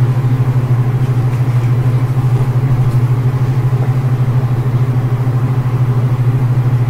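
A steady low hum, loud and unbroken, with a fast flutter in its level.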